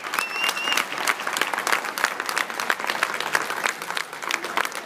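Audience applauding: many hands clapping in a dense, steady patter, with a brief high tone in the first second.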